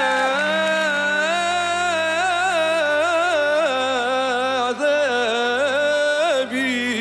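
An older man singing a long, unbroken, ornamented Arabic vocal line, his voice wavering and turning around held notes, over a steady held accompaniment note underneath.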